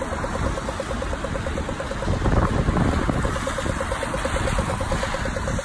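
Wind buffeting the microphone over the hiss of traffic on a rain-soaked road, with a fast, even ticking repeating several times a second.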